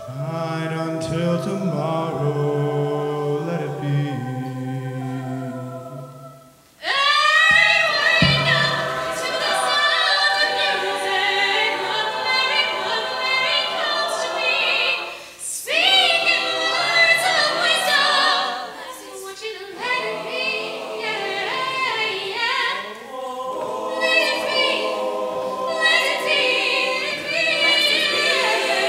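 Choir singing: a male soloist at a microphone carries the first several seconds over a lower backing, then after a brief drop the full choir comes in loudly with a rising swell about seven seconds in and keeps singing.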